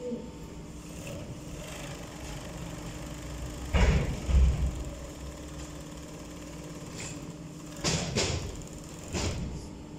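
Steady hum of an industrial sewing machine's motor running while the machine is idle. Louder rustling of fabric being shifted on the table breaks through about four seconds in and twice near the end.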